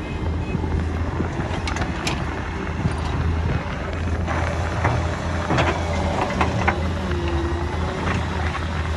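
Solar 130 crawler excavator's diesel engine running steadily at working speed while digging, with sharp knocks and clanks from the bucket and arm, most of them between about four and seven seconds in.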